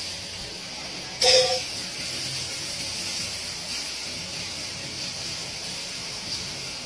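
Stir-fry sizzling in a hot wok on an automatic cooking machine, a steady hiss. About a second in comes one sudden loud clank with a brief ringing tone.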